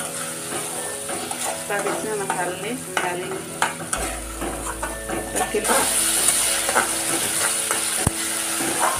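A flat metal spatula scraping and stirring around a metal kadhai, with repeated short scrapes, while onion paste and ginger-garlic paste sizzle as they fry in oil. The sizzle grows louder a little past halfway.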